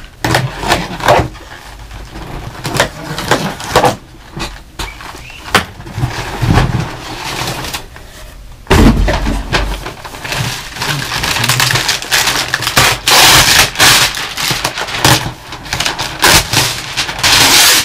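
A long cardboard box being opened and its packing handled: irregular scraping, rustling and knocks, with a heavy thump about nine seconds in. Through the second half comes dense crinkling of the packing.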